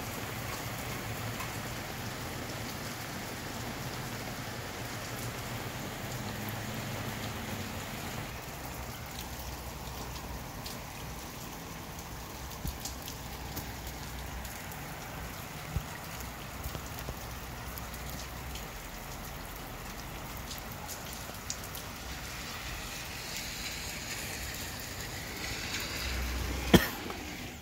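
Steady rain falling, an even hiss with scattered ticks of drops, and a single sharp click near the end.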